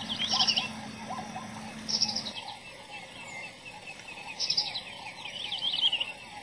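Birds calling: short, high chirping phrases repeated every second or two, with fainter, lower chirps between them.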